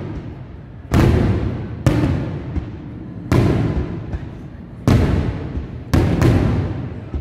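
Aerial firework shells bursting: six sharp booms at uneven intervals, two of them close together near the end, each trailing off in a low rumble over about a second.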